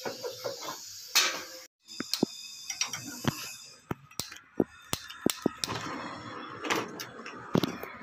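A canister butane brazing torch being handled at an air conditioner's pipework: a string of sharp clicks and knocks, then a steady hiss from about halfway through.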